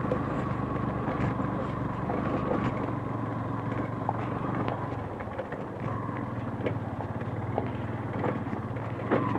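Motorcycle engine running steadily at a low, even speed on a rough off-road track, with a few light knocks scattered through.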